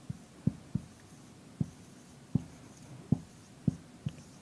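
Dry-erase marker writing on a whiteboard: about eight short, irregular taps as the strokes land.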